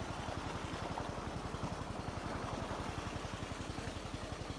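Engine running steadily with a fast, even low chugging pulse, over water gushing from a tubewell pipe into a brick tank and splashing.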